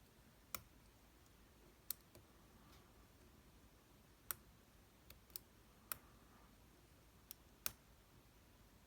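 Lock pick and tension tool working inside a brass American padlock: about eight sharp, irregular clicks as the pins are picked.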